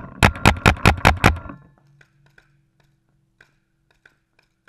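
A rapid burst of paintball marker shots, about eight in quick succession, ending about a second in, followed by faint, scattered pops of more distant shots.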